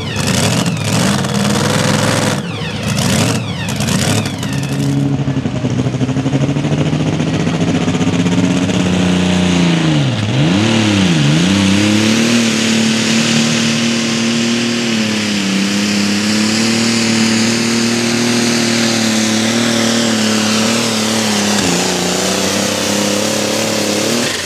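Pulling vehicles' engines at full throttle under load. First a pulling truck's engine revs in a choppy, uneven way. Then, after a cut about five seconds in, an International Harvester 1206 super stock pulling tractor's engine runs steadily at high revs; its pitch dips sharply twice about ten seconds in, then comes back up and holds.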